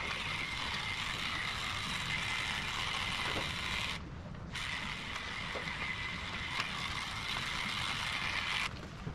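Heininger Xplorer cordless cattle clipper running steadily while clipping a cow's hair. It cuts out for about half a second around four seconds in, then runs again and stops shortly before the end.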